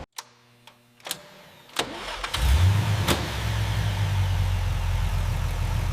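Three sharp clicks, then an engine starts about two and a half seconds in and settles into a steady low-pitched run.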